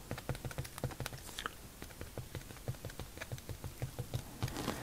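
Posca paint-marker tip tapping on watercolour paper as white dots are put down: a run of light, quick taps, several a second.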